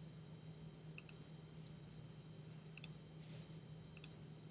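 Quiet computer mouse clicks: three short bursts, mostly quick double clicks, about a second in, just before three seconds and about four seconds in, over a low steady hum.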